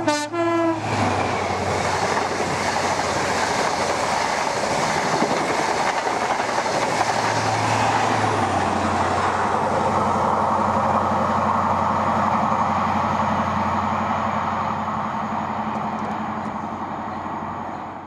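The multi-tone horn of a British Rail Class 43 HST power car ends about a second in. Then the high-speed train runs past: a loud, steady rush of wheels and rails over a low diesel engine hum, dying away near the end.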